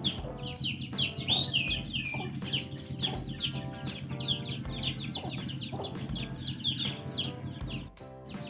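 Young chickens peeping and clucking, a run of short, high, falling chirps, over background music with a slow steady beat.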